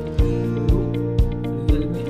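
Background music with a steady beat: a kick drum about twice a second under held chords.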